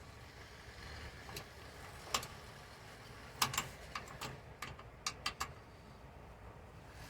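Scattered light clicks and taps from hand-tool work, a wrench on the mounting hardware of a truck's brake quick release air valve, with a few quick clicks in a row about five seconds in.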